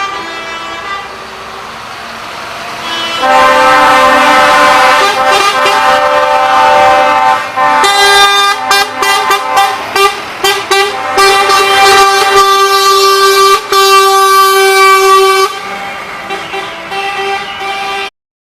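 Truck air horns honking, several pitches sounding together. A long held blast starts about three seconds in, then comes a run of short toots, then another long blast, and the horns grow fainter near the end.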